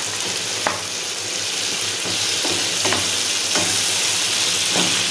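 Boneless chicken pieces sizzling in hot oil and ketchup-masala sauce in a nonstick frying pan, stirred with a wooden spatula that now and then scrapes and knocks against the pan. The chicken is being sautéed until the oil separates.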